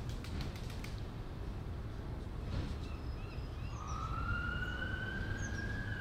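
Emergency-vehicle siren sounding: one long, slow rise in pitch starting about four seconds in, turning downward near the end, over a steady low rumble.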